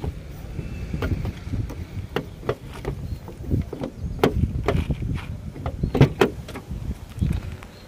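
Irregular soft knocks and rustles, about one or two a second, from footsteps on dry ground and a hand-held phone camera being moved around.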